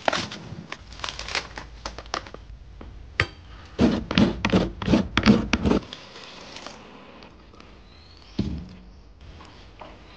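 Large knife chopping into a coconut's fibrous husk: a run of sharp strokes, then a louder run of sharp hits about four seconds in. After that it goes quieter, with a single thud near the end.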